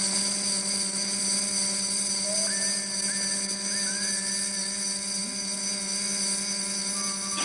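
Steady electronic whirring drone, a cartoon sci-fi sound effect, that starts abruptly and holds at an even level, with a fluttering hum underneath and a few short rising chirps around the middle.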